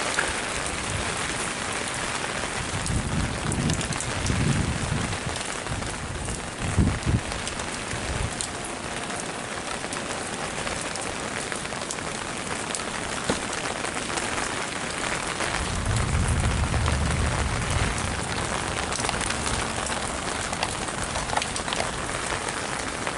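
Steady heavy rain from Hurricane Harvey falling and splashing on surfaces, with a few low rumbles coming and going, one around three to five seconds in and a longer one about two-thirds of the way through.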